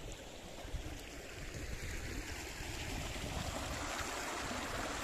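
Flowing river water, a steady rushing that grows louder about halfway through.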